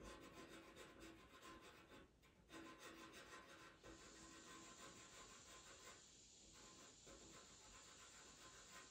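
Pastel pencil scratching on Pastelmat paper in rapid short strokes, faint, with a brief pause about two seconds in.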